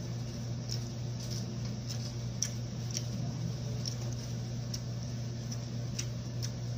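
Eating noises of a man eating rice and chicken with his hands: irregular small clicks of chewing and lip smacking, over a steady low hum.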